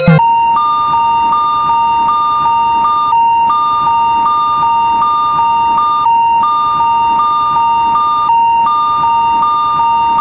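Electronic two-tone warning alarm of a Japanese railroad crossing (fumikiri) signal: a steady tone with a higher tone pulsing over it about twice a second, pausing briefly every few seconds.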